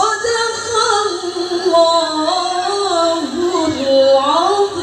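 A woman reciting the Quran in the melodic tilawah style into a microphone: drawn-out, ornamented phrases with the pitch winding up and down, a note held at the end.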